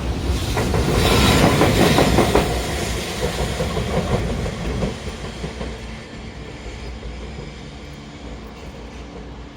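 A train passing close by, its wheels clattering rapidly over the rail joints. The clatter is loudest about a second or two in, then fades over the next few seconds to a low rumble as the train draws away.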